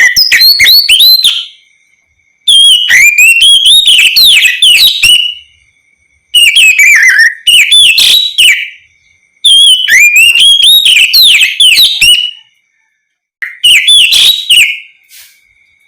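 Oriental magpie-robin (kacer) singing loudly in the open, full-voiced 'ngeplong' style: five bursts of quick, sweeping whistled notes and slurs, with short pauses between them.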